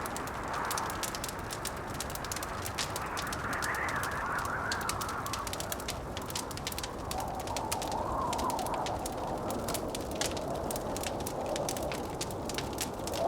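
Wood fire crackling with many small, rapid pops, over blizzard wind howling that slowly rises and falls in pitch.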